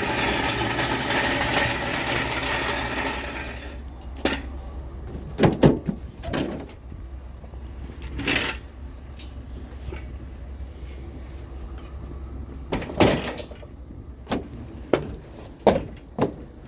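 A vehicle engine idling with a steady low hum, while scattered knocks and clunks come from scrap items being handled and set down. A loud hiss fills the first few seconds before dropping away.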